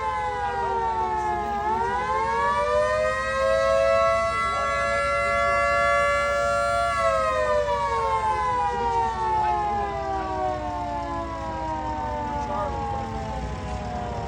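Small two-tone siren sounding a chord: its pitch dips to a low point about a second and a half in, climbs back up and holds steady for a few seconds, then slowly winds down.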